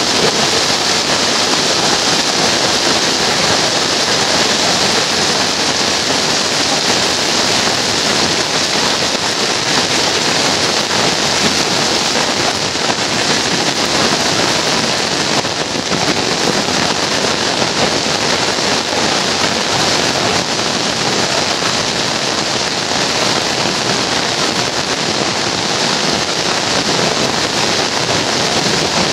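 Heavy rain falling steadily on a paved street, roofs and trees: a loud, even hiss that does not let up.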